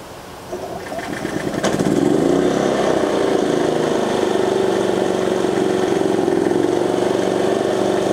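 Energizer eZV3200P inverter generator started by its remote electric start: the engine catches about half a second in, builds up and settles into a steady run at light load by about two seconds.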